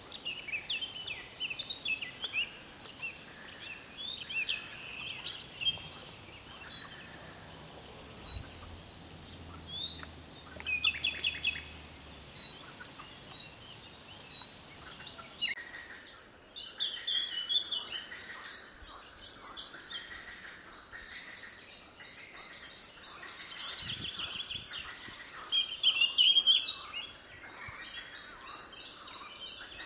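Several songbirds singing outdoors, a mix of short chirps and fast trills that overlap throughout, with the loudest trill near the end, over a soft background hiss.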